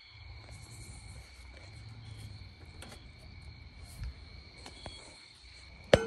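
Crickets trilling steadily at night over a low rumble, with a sharp click just before the end.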